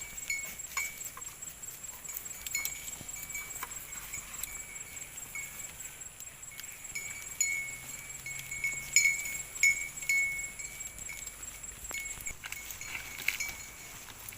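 Bells on cattle clinking and ringing irregularly, short metallic notes coming at uneven intervals as the animals move.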